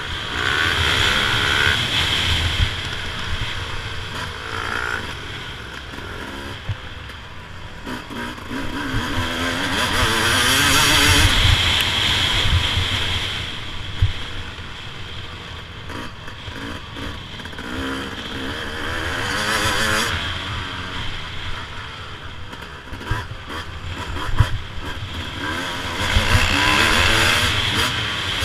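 A Suzuki RM250 two-stroke motocross engine, heard from the bike itself, revving hard and backing off as it is ridden around a dirt track. It rises in pitch and loudness three times, about a third of the way in, past the middle and near the end.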